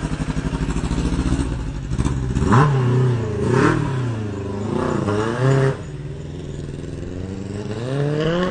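Sport motorcycle engine running, then revving up and down as the bike pulls away and rides off; its note drops off sharply a little past halfway, then climbs again near the end as it accelerates.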